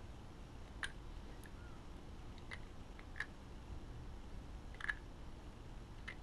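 Light clicks of the metal bearing pieces from a hot tapping machine's boring bar as they are handled and turned in the fingers, checked to see that the balls still move. About five sharp clicks come at uneven intervals, the loudest about five seconds in, over a low steady hum.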